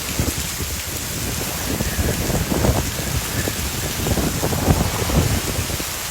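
Heavy rain pouring in a severe storm, with uneven low rumbling swells under the steady hiss.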